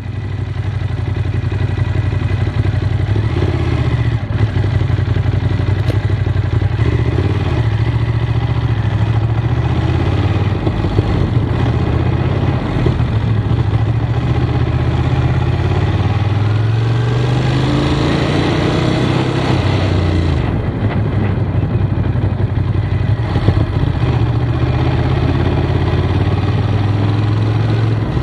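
Ducati Monster motorcycles' L-twin engines running at low revs, then one pulls away, its note rising as it accelerates and dropping suddenly at a gear change about twenty seconds in, before running steadily again.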